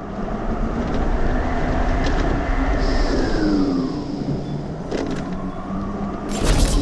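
Road-vehicle rush of wind and tyre noise that swells and then falls away about three to four seconds in, with a short loud burst of noise near the end.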